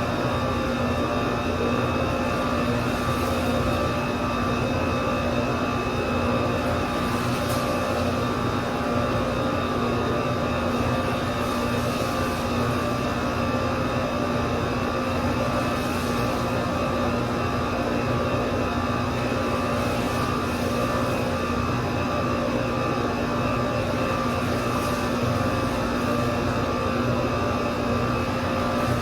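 A steady machine hum with several fixed tones, unchanging throughout.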